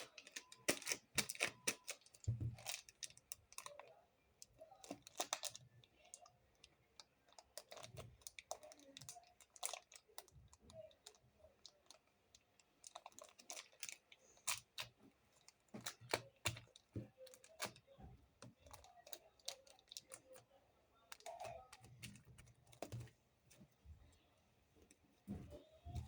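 Hands kneading and mixing stiff clay for butter slime, giving irregular sharp clicks and taps.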